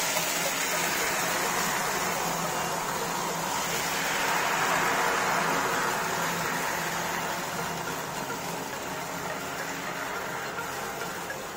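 Wheat milk poured into a hot nonstick pan greased with ghee, sizzling and bubbling: a hiss that starts suddenly, swells a few seconds in and slowly dies down.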